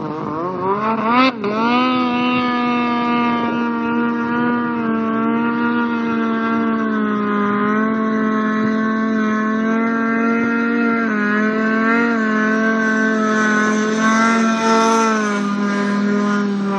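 Snowmobile engine held at high, steady revs as the sled skims across open water, with a brief dip and pickup in engine pitch about a second in. Near the end the hiss of water spray swells as the sled passes close.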